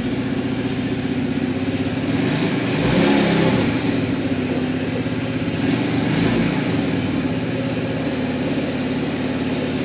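Tao Tao 49cc moped engine running just after a cold start, a steady idle with a brief rise in engine speed around three seconds in and another around six seconds in.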